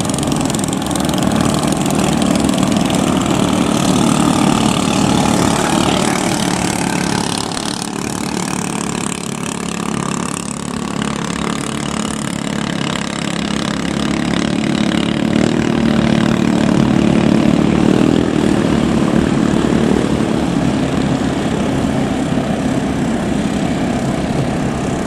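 Several small 7 hp long-tail boat engines running together, a steady buzzing drone that swells to its loudest about two-thirds of the way through and then eases off.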